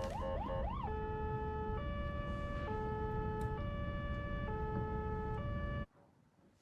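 Ambulance siren going from a rapid rising yelp, about three sweeps a second, into a slow two-tone hi-lo wail that changes pitch about once a second. Steady road noise runs underneath, and both cut off suddenly near the end.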